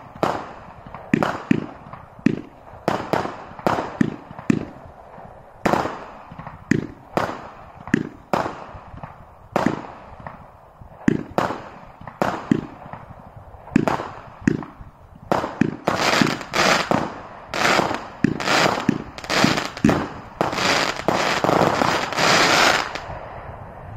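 Celtic Fireworks 'Sunset Lights' firework barrage firing a quick string of shots and bursts, about two a second. The bangs grow denser and louder in the last seven seconds or so, then stop shortly before the end.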